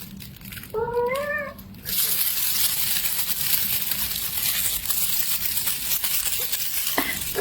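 A kitten meows once, a short call that bends in pitch, about a second in, over a steady hiss.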